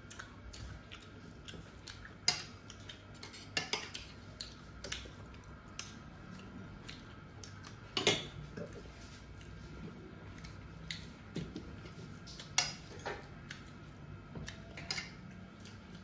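Irregular clinks, taps and scrapes of dishes and utensils during a meal, with the sharpest clinks about halfway through and again a few seconds later.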